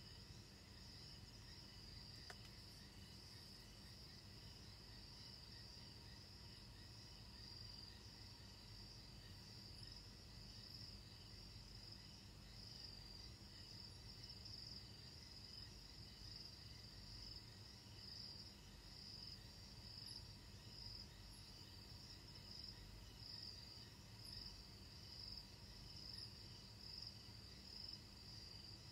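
Faint night chorus of crickets: a steady high-pitched trill that swells in pulses about once a second, over a low hum.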